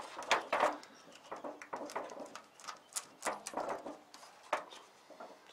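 Thin aluminium foil oven liner crinkling and crackling in the hands as the jagged torn bits around its drilled holes are picked and pulled off, in short, irregular crackles.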